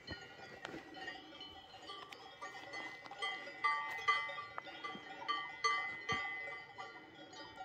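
Cowbells on grazing cattle clanking irregularly, several bells ringing at different pitches, loudest in the middle few seconds.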